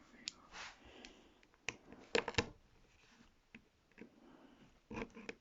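Faint, irregular clicks and short scrapes of small tablet parts being handled and pried apart by hand. The sharpest cluster of clicks comes about two seconds in, with another pair near the end.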